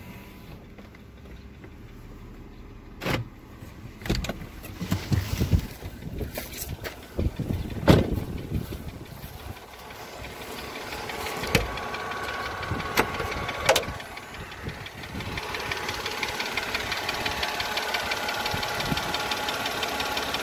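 Mercedes M112 V6 petrol engine running with a fast, even ticking (a 'tsok-tsok') that the owner traces to the cylinder heads on both sides. Several sharp knocks in the first half, the loudest about eight seconds in.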